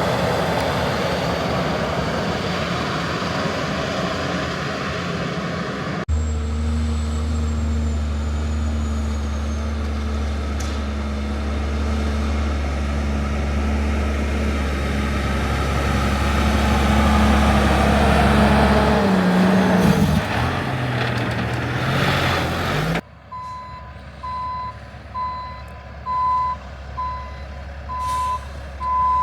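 Heavy diesel machinery running at a steady, loud drone, its engine note shifting near the middle. Near the end a vehicle's reversing alarm beeps steadily, about one beep every 0.7 seconds, over the engine.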